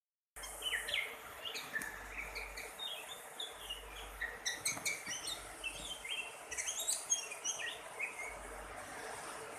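Oriental magpie-robin (kacer) singing a fast, varied run of short whistled and chirping notes, stopping shortly before the end.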